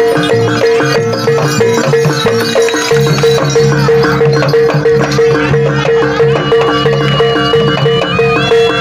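Kuda lumping (jaranan) gamelan music: kendang drums and a steady, evenly repeating beat from metal percussion, with a high held melody line coming in after about six seconds and bending in pitch near the end.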